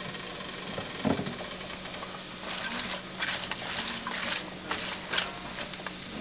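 Wooden spoon stirring and turning chopped raw cabbage in a cast-iron skillet, with leaves rustling and crunching and the spoon scraping the pan in short, irregular strokes that begin about two and a half seconds in. A soft knock comes about a second in.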